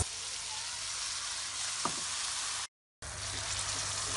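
Hot oil sizzling in a frying pan as a wet blended onion-and-tomato paste goes in over a cumin and mustard-seed tempering; a steady hiss that cuts out abruptly for a moment about two-thirds of the way through, then carries on.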